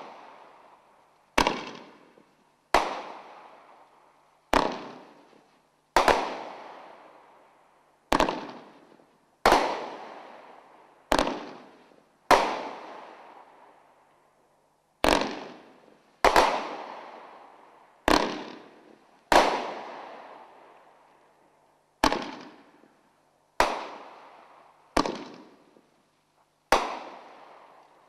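Soaring Eagle 'Aces and Eights' firework cake firing a string of aerial shots, a sharp bang about every one to two seconds with a few longer pauses. Each bang dies away over a second or so.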